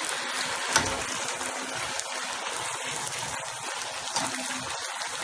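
Bhatura (a deep-fried bread) frying in hot oil, a steady sizzle as the dough puffs up. There is one light tick just under a second in.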